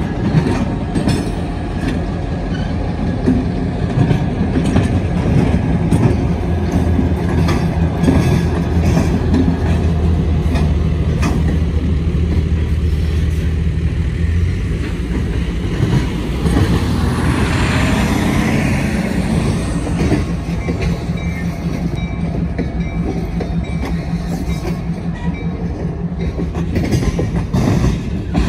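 A single Geep diesel locomotive runs past with its engine humming steadily, then lumber-loaded flatcars roll by with their wheels clacking over the rail joints. The engine sound fades about halfway through, and a brief hiss rises and falls about two-thirds of the way in.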